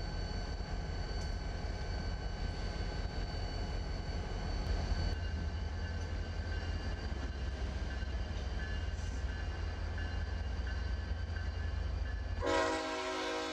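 Diesel-electric freight locomotives passing at close range: a deep, steady engine drone with a steady high whine over it. About a second before the end, a chord of several sustained tones comes in.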